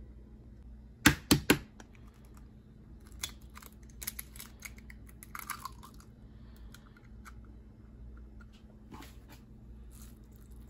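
Three sharp knocks in quick succession about a second in, followed by scattered lighter clicks and clatter: kitchen utensils handled against a stainless steel mixing bowl while mixing pancake batter.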